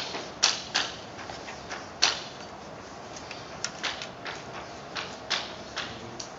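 Chalk writing on a chalkboard: an uneven string of sharp chalk taps and short scrapes as symbols are written.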